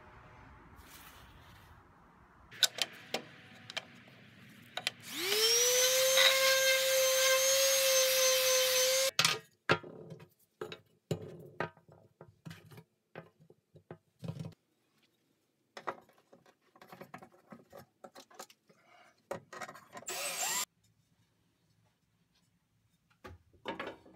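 Table saw starting up: its motor whines up to a steady pitch, runs for about four seconds, then cuts off abruptly. Afterwards come scattered knocks and clicks of small wooden pieces being handled, and a short burst of noise.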